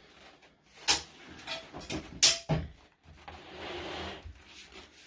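A few sharp knocks, the loudest about two seconds in, then a scraping sound lasting about a second, from sofa-bed parts and its frame being handled and moved during assembly.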